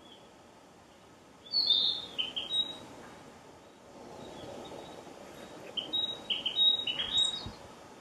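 Narcissus flycatcher singing: two short phrases of quick, clear high notes, the first about a second and a half in and a longer, louder one about six seconds in.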